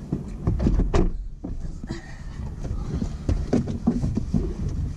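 Clunks, knocks and rustling of people climbing into a Tesla Model S and settling into the seats, with a low rumble underneath.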